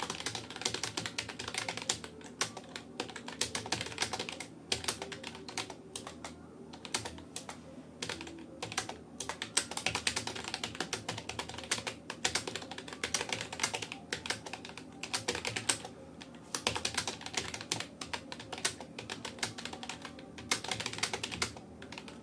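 Fast, continuous typing on a Rapoo computer keyboard: a rapid run of key clicks with brief pauses, from an A-to-Z key drill.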